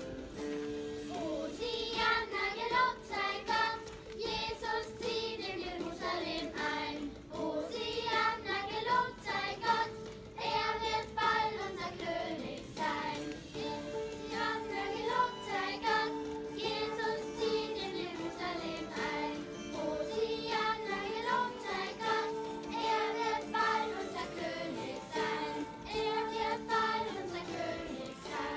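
Children's choir singing a song, the voices moving in phrases over held notes.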